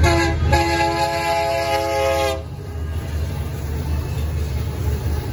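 Union Pacific EMD SD59MX locomotive's air horn sounding a chord of several notes: a short blast, then a longer one of about two seconds, as its grade-crossing warning. A steady low rumble from the approaching train runs underneath.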